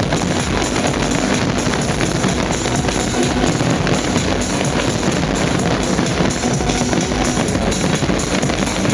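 Loud music with a heavy drum-kit beat, played out over a fireworks display's sound system.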